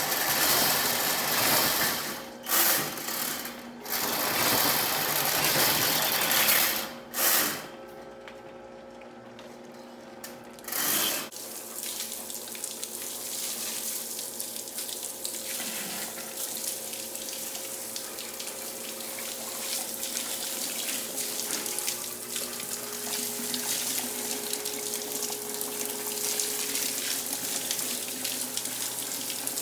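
Water running from a tap into a sink or drain, a steady rush, with several louder gushes in the first ten seconds or so.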